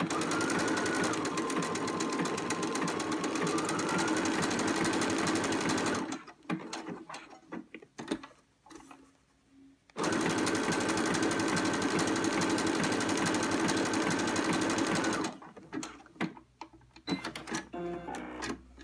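Domestic electric sewing machine stitching a blanket stitch with an appliqué foot: rapid needle strokes over a motor whine, in two runs of about six and five seconds with a pause between. In the first run the whine's pitch dips and then rises again.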